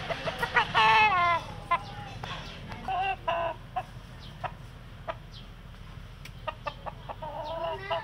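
Roosters calling: a loud call falling in pitch about a second in, then shorter clucking calls around three seconds in and again just before the end, with a few sharp clicks in between.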